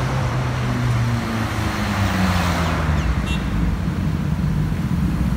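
Highway traffic going by. A vehicle passes close in the first couple of seconds, its engine note falling as it goes. Then motorcycle engines approach and grow louder near the end.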